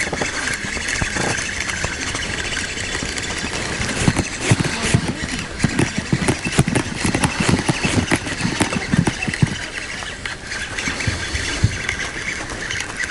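A fishing reel being wound in against a hooked fish. From about 4 to 10 seconds in there is a run of irregular knocks and thumps.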